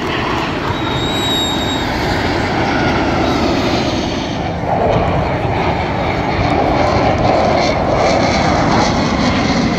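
Jet engine noise from a formation of T-50B jets flying past, a steady rushing sound that grows louder about halfway through.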